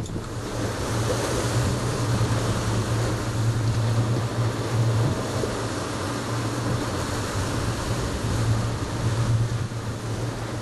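Fishing boat's engine running steadily with a low hum, under a constant rush of wind and sea noise.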